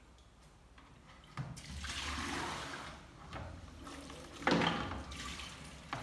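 Water splashing and sloshing in a plastic washing-up basin at a kitchen sink. It starts about a second and a half in, with a sharper, louder splash about four and a half seconds in.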